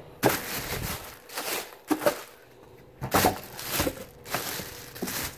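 Clear plastic wrapping crinkling and a cardboard box rustling in irregular bursts as a packaged jump starter is handled and pulled free.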